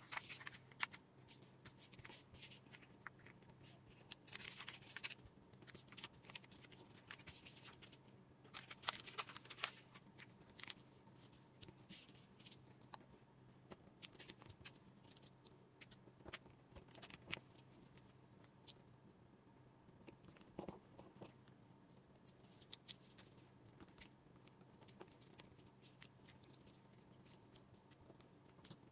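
Faint crinkling and crackling of a square of origami paper being folded and creased by hand, in irregular clusters of sharp little crackles, busiest about 4 and 9 seconds in, over a low steady hum.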